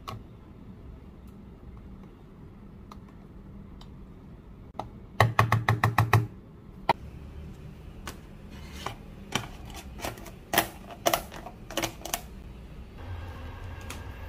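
Sharp plastic clicks from a plastic food container as its snap-on lid is pressed shut: a quick run of about seven loud clicks about five seconds in, then scattered single snaps. A low hum comes in near the end.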